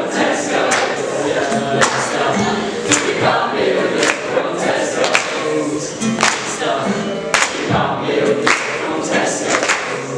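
A choir singing with music, with a strong beat about once a second.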